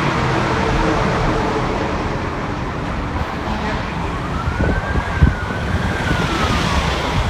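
Road noise heard from inside a moving car, a steady low rumble. About halfway through, an emergency vehicle's siren comes in as one slow wail that rises and then falls.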